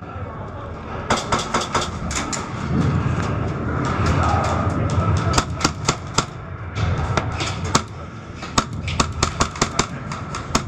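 Airsoft gunfire: sharp clicks of shots and BB strikes in short, irregular runs, the fastest run near the end, over a low rumble.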